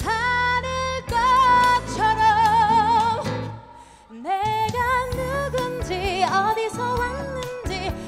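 A woman singing a musical-theatre number live over instrumental accompaniment, holding long notes with vibrato. Her voice drops out briefly about four seconds in, then she picks up the next line.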